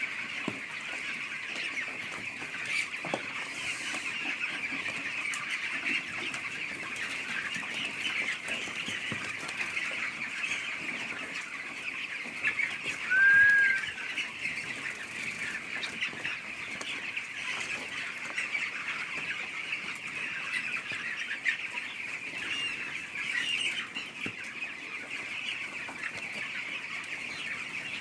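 A flock of 15-day-old broiler chicks peeping continuously in a dense, steady chorus. One louder short call stands out about halfway through.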